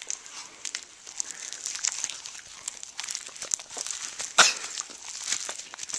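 Crinkling, crackling rustle of latex gloves coated in petroleum jelly being rubbed and squished together. There is one sharp knock about four and a half seconds in.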